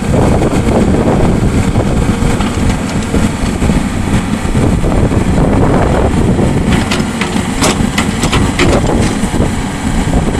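A 2004 IHI 45NX mini-excavator's diesel engine running steadily as the boom lowers and the bucket curls toward the ground. A few sharp knocks come about seven to nine seconds in.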